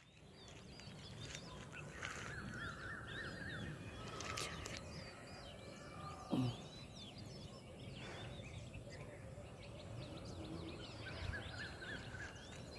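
Quiet open-country ambience with small birds calling, their chirps and short rapid trills scattered throughout. About six seconds in, a brief louder sound slides steeply down in pitch.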